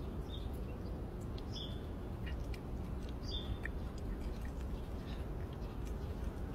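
A cat chewing wet cat food, small scattered wet clicks of eating, over a steady low outdoor rumble. A few short high chirps come in the first four seconds.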